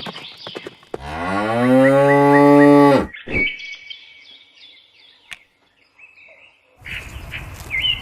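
A cow mooing once, a single loud call about two seconds long that rises at the start and then holds steady. Soft clicks come before it, and faint high chirps follow it.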